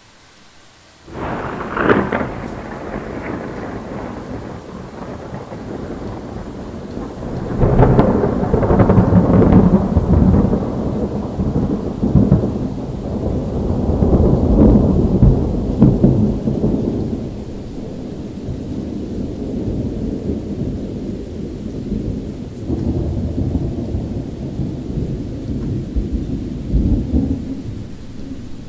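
Thunder during a rainstorm: a sudden sharp crack about a second in, then a long rolling rumble that swells again twice before slowly dying away, with steady rain falling beneath it.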